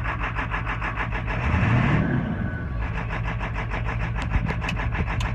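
Ford 7.3 Powerstroke V8 turbo diesel idling with a fast, even clatter of about nine pulses a second, swelling briefly about a second and a half in. The idle is rough, and the cause is still unknown after a new ICP sensor, an oil change and a fuel filter.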